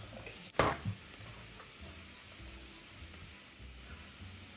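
A sharp knock about half a second in, then a lighter one just after, like something hard being set down on a kitchen worktop, over a faint steady hiss.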